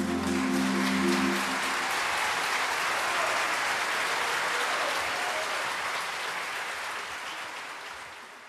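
Audience applauding at the end of a choral piece. The choir's held final chord rings on under the clapping for the first second or two, then the applause fades out near the end.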